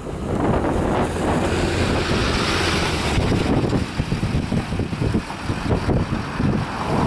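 Wind buffeting the microphone, mixed with the engine and tyres of a pickup truck rolling slowly past close by; the rushing noise swells about two seconds in, then gusts unevenly.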